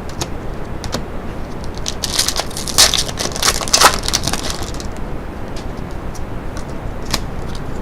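A trading card pack's wrapper is torn open and crinkled, with a dense crackling from about two seconds in to about halfway, then scattered single crackles and clicks.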